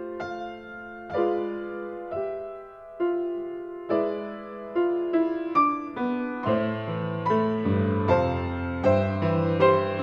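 Piano music: a slow melody of single struck notes, each fading away, with lower bass notes coming in about two-thirds of the way through as the notes come closer together.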